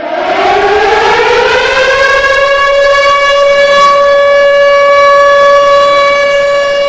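Civil defense siren winding up, its pitch rising over about the first two seconds, then holding one steady, loud tone.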